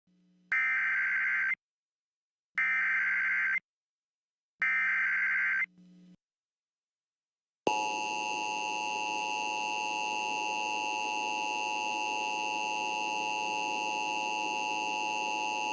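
Emergency Alert System header: three one-second bursts of digital data tones, one second apart. About two seconds later comes the steady two-tone EAS attention signal, starting sharply and held for about eight seconds, announcing an alert message.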